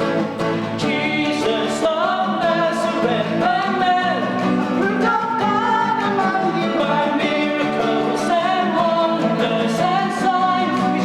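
Singing with strummed acoustic guitar accompaniment.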